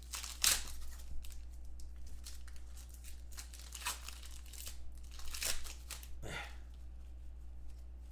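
Shiny trading-card pack wrappers crinkling and tearing as packs are ripped open and the cards pulled out, in short bursts about half a dozen times, over a low steady hum.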